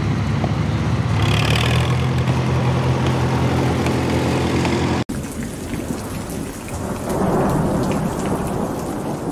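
Antique Farmall tractor's engine running hard under load as it pulls the sled past. About five seconds in, it cuts off abruptly to the hiss of rain with rumbling thunder.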